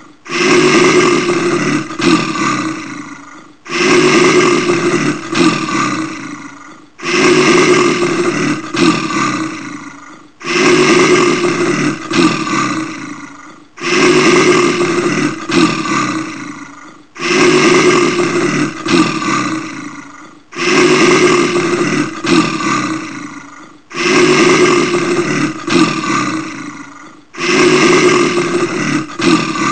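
Brown bear roaring: the same roar begins sharply and fades away over about three seconds, repeated as a loop every three and a half seconds, nine times.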